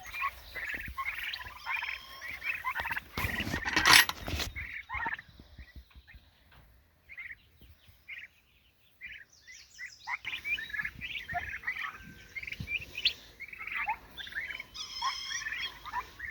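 A flock of turkeys, Narragansetts with a broad-breasted bronze, calling in many short high notes. About three seconds in there is a loud rustling burst. In the middle the calls thin out for a few seconds, then pick up again.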